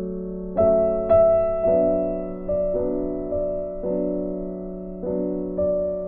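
Background music: a slow, gentle piano melody with single notes struck every half second to a second over a steady held low note.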